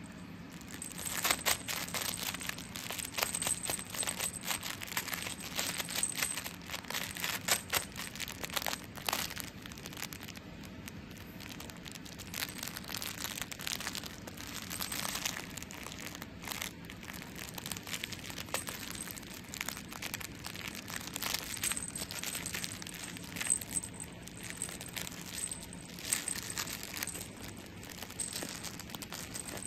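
A kitten wrestling a plush toy, hugging, biting and kicking it: a busy run of rustling, crinkling and sharp clicking noises as its paws and claws work the toy.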